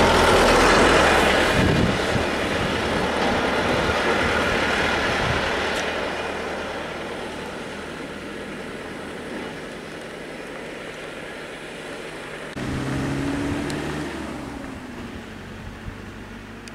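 Road vehicles' engines and tyres passing close by. One goes by loudly in the first couple of seconds and fades away. About twelve and a half seconds in, another engine's hum starts suddenly and fades, its pitch sinking slightly.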